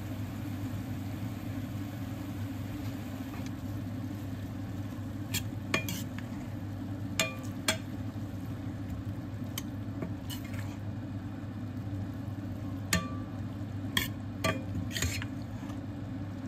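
Squid and bean sprouts being stir-fried in a stainless steel pot: a metal spoon clinks and scrapes against the pot a dozen or so times from about five seconds in, over sizzling and a steady low hum.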